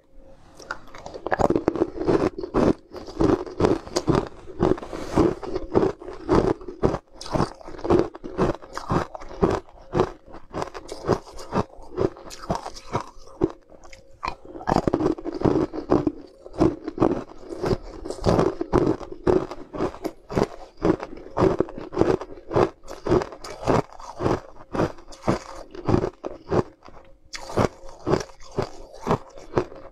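Close-miked crunching as pieces of sweet ice are bitten and chewed: a rapid run of sharp cracks, with a short lull about halfway through.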